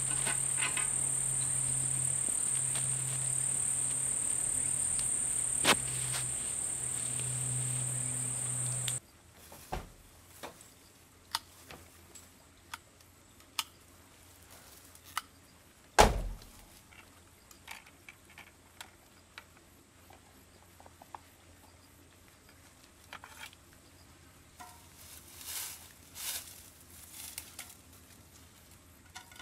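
Steady, high-pitched chirring of insects such as crickets for about the first nine seconds, which then cuts off abruptly. After that only faint, scattered clicks and knocks remain, with one louder thump near the middle.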